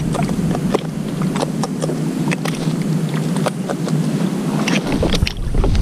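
Steady wind rumble on the microphone, with many small irregular clicks and knocks from fishing gear being handled aboard a kayak, and a heavier knock near the end.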